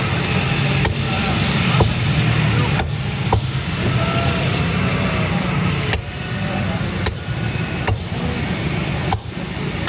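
Meat cleaver chopping chicken on a wooden stump block: about eight sharp strikes, roughly a second apart, over a steady rumble of road traffic.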